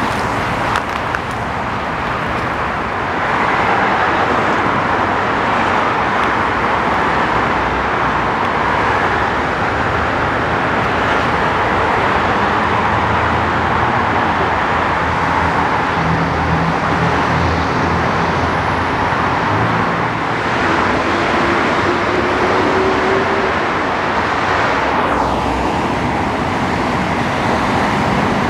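Steady wash of freeway traffic: tyre and engine noise from many vehicles running together, with a high sound sliding down in pitch near the end.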